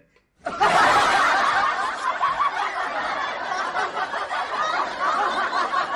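Laughter that breaks out suddenly about half a second in and carries on without a break.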